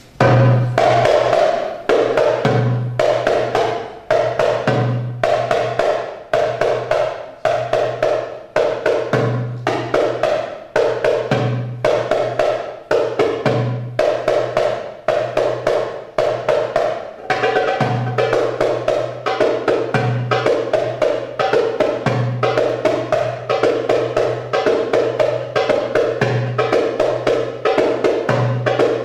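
Goblet drum (darbuka) solo for belly dance: deep bass strokes recurring among fast, sharp high-pitched strokes and rolls in a driving rhythm, starting abruptly.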